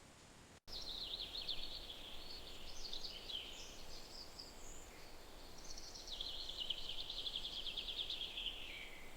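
A songbird singing two long, rapid trilling and warbling phrases over a faint outdoor hiss, starting suddenly about half a second in.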